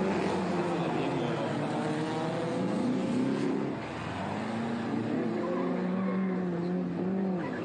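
Pre-war racing cars' engines running hard through a street-circuit corner, the engine notes rising and falling as they lift off and accelerate away; more than one car is heard at once.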